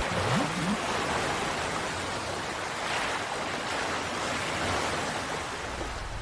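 Sea water washing over shallows: a steady, even rush of waves, swelling slightly about halfway through.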